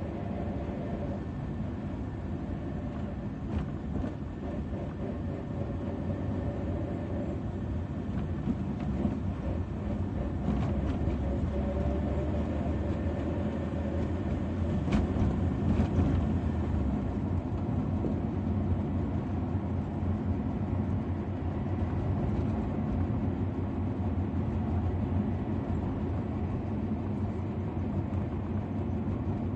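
Car interior driving noise: a steady low engine and tyre rumble heard from inside the cabin, growing somewhat louder over the first ten seconds or so as the car gets moving in traffic.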